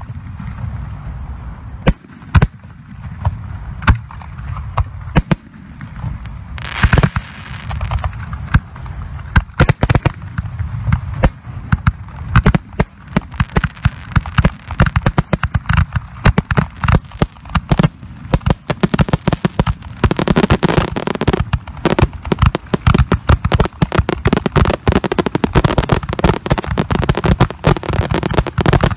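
Professional 3- and 4-inch aerial firework shells bursting overhead with sharp reports, a second or more apart at first, then building into a dense rapid barrage of bangs about two-thirds of the way through: the display's finale.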